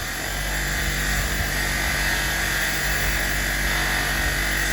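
Motor-driven wire brush running, its whirr coming up to speed in the first half second and then holding steady with a hiss, as rusty box spanners are cleaned on it to find their markings.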